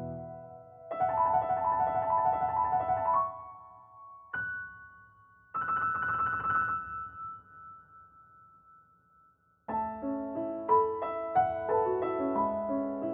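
Background piano music: short phrases of notes separated by pauses, a few single notes left to ring and fade almost to silence, then a busier run of notes starting about ten seconds in.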